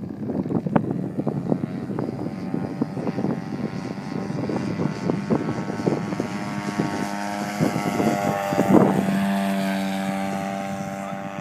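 RC model airplane's motor and propeller running, with irregular crackling through the first eight seconds. The steady tone swells to its loudest about nine seconds in, then slowly fades.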